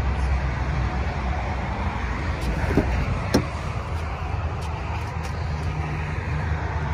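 Steady low vehicle rumble, with a click and then a sharper clack about three seconds in as the front door of an Infiniti SUV is unlatched and swung open.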